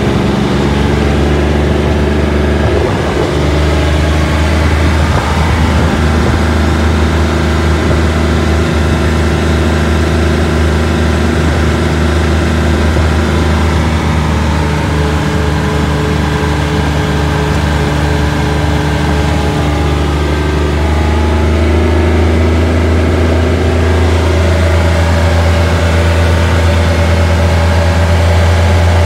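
Vehicle engine running steadily, heard from inside its cab while driving; it gets a little louder and changes pitch slightly about two-thirds of the way through.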